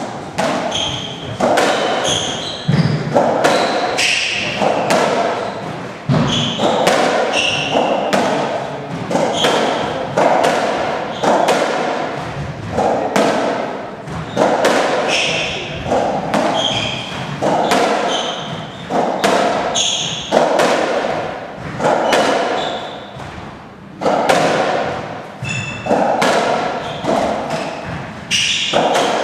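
Racketball rally on a squash court: hollow thuds of the rubber ball off the rackets and walls about once a second, ringing in the enclosed court. Short high squeaks of shoes on the wooden floor come in between the hits.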